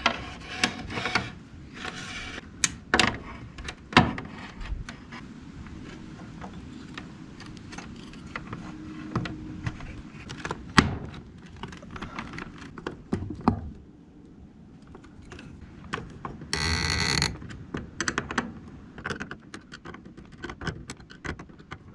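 Scattered clicks, knocks and rattles of tools and cables being handled while cables are connected into a switchboard. There is one short rasping burst a little past halfway.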